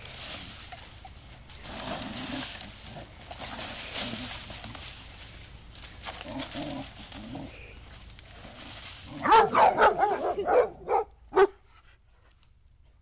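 Boxador puppies scuffling with a leaf rake, its tines scratching and dragging through grass; about nine seconds in, a loud two-second run of short puppy barks and yips.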